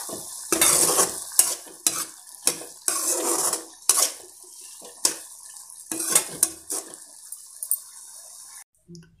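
Metal spatula scraping and knocking against a metal kadai as a thick vegetable curry is stirred, in repeated strokes over a steady sizzle as the last of its water cooks off. It all stops suddenly near the end.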